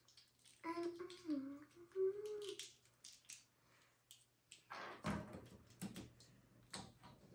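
A child hums briefly with a wavering pitch, then small plastic toy parts and packaging rustle and click as they are handled.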